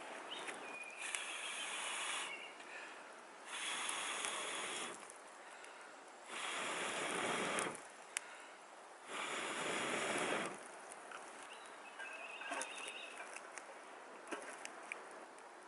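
Four long puffs of breath blown into a campfire, each hissing for about a second and a half with short gaps between, followed by a few light crackles from the fire near the end.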